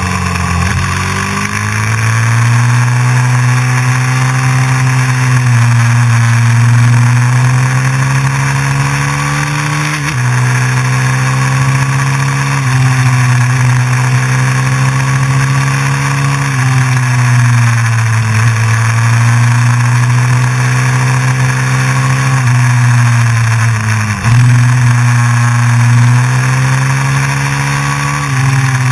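Honda CRF450X's single-cylinder four-stroke engine pulling hard up a winding road, its note climbing and then dropping again every few seconds with sudden steps in pitch, over a steady rush of wind.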